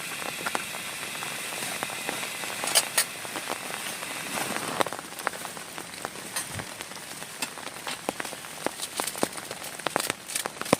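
Heavy rain falling: a steady hiss with many sharp individual drops hitting close by, the hiss easing slightly about halfway through.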